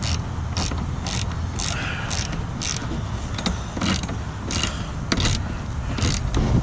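Husky 3/8-inch 100-position ratchet tightening a nut, its fine-toothed pawl clicking in a quick buzz on each back swing, about two strokes a second. A steady low rumble of wind on the microphone lies underneath.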